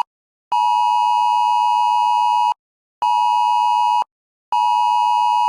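Emergency alert attention signal, a loud two-tone beep, sounded ahead of a weather radio severe thunderstorm warning. It comes as three beeps with half-second silences between them, the first about two seconds long and the next two about a second each.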